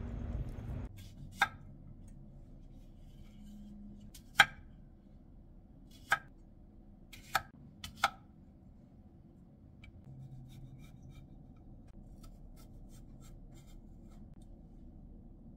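Chef's knife cutting through cucumbers onto a wooden cutting board: several sharp knocks of the blade striking the board in the first half, then fainter taps as the pieces are scored.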